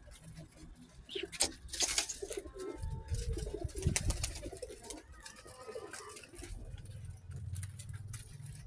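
Domestic pigeons cooing low, with a few sharp clicks mixed in.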